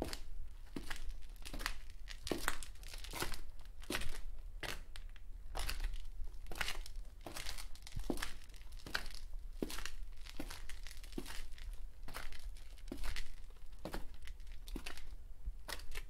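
Footsteps: a steady run of short, sharp steps, about two to three a second.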